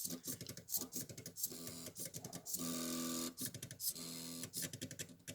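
The two stepper motors of a small homemade CNC drawing machine whine through a run of short moves. Each move holds a steady pitch that changes from one move to the next, with light clicks in between.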